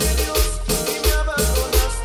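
Cumbia track playing through a sonidero sound system, with a deep bass pulse on a steady beat under sustained melody notes.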